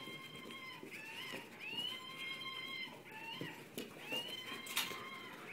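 Electronic monkey toy sounding a series of high-pitched monkey cries: short cries that bend up and down, and one longer held note about two seconds in. A couple of light knocks come near the end.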